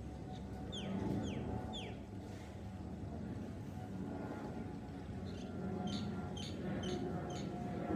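Distant rumble of an Airbus A320-216's CFM56 turbofan engines as the airliner passes overhead, with birds calling over it: three quick descending whistles about a second in, then a run of short high chirps in the second half.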